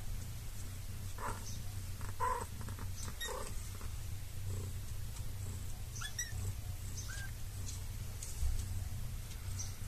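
A kitten and its mother cat: a few short high mews and chirps, two of them rising in pitch, over a steady low purr.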